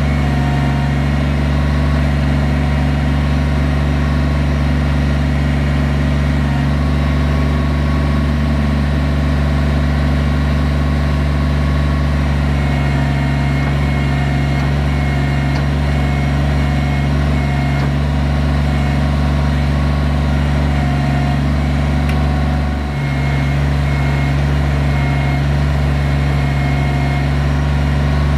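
Kubota BX23S compact tractor's three-cylinder diesel engine running steadily while its backhoe digs a trench. A faint on-and-off high tone comes in about halfway through, and the engine dips briefly near the end.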